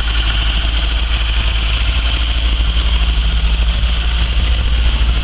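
1981 Ford Cortina MK5 engine idling steadily on the choke just after a cold start following months standing, running smoothly rather than lumpy.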